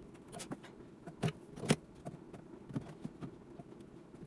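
Pliers working the wire mesh of a wooden cage door: a series of sharp metallic clicks, the loudest two about a second and a second and a half in, over a low steady hum.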